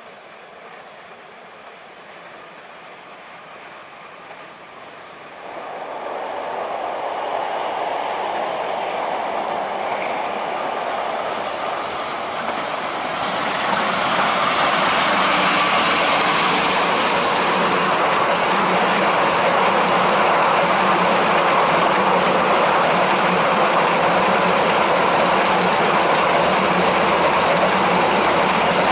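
Diesel-electric passenger train approaching round a curve: the locomotive grows louder about five seconds in and again about thirteen seconds in as it comes close. A long line of coaches then rolls past with steady clickety-clack from the wheels on the rails.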